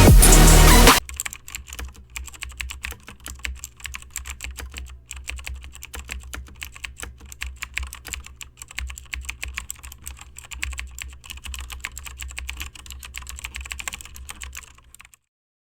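Rapid, irregular typing on a computer keyboard over a low steady hum.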